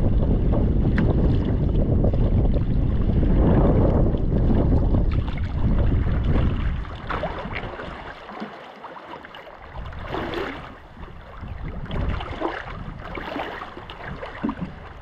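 Gusty wind buffeting the microphone over choppy water, easing about halfway through to leave the irregular splash of paddle strokes and small waves lapping against a wooden canoe's hull.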